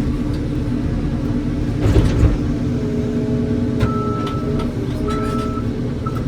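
Heavy diesel engine running steadily, with a brief louder rush about two seconds in.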